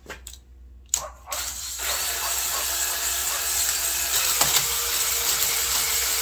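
Cordless drill spinning an Ammco 3800 cylinder hone inside the cast-iron cylinder sleeve of a Suzuki LT250R two-stroke: after a click about a second in, a steady scraping whir with a faint motor whine as the stones hone the rusted, scratched cylinder wall.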